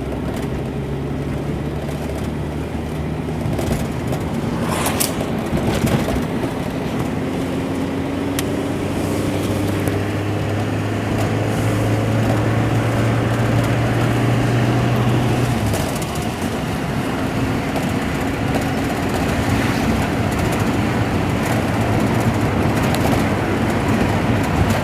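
ZAZ Slavuta's carburetted four-cylinder engine and road noise heard from inside the cabin while driving, the engine note rising steadily as the car accelerates, then dropping abruptly about sixteen seconds in. A few sharp knocks come around five and six seconds in.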